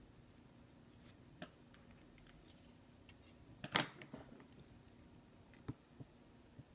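Small repair tools clicking and tapping against the parts of an opened iPhone 6s as a part is worked loose. There are a few light clicks, with one louder clatter about four seconds in.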